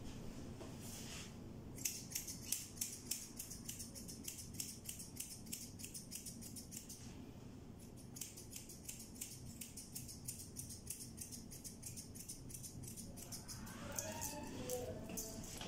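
Grooming scissors snipping through a cat's fur: quick, even snips, a few a second, in two long runs with a short break between them.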